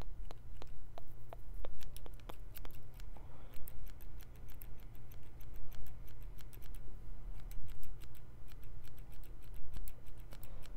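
Hairdressing scissors snipping close to the microphone: a quick, irregular run of sharp snips, several a second.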